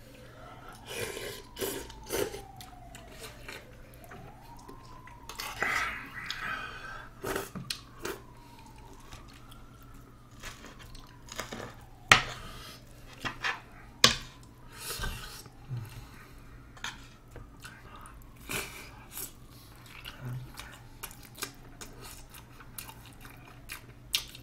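A faint distant siren slowly rising and falling in pitch, under close eating sounds: a metal spoon and chopsticks clinking on dishes, and chewing. Two sharp clinks about halfway through are the loudest moments.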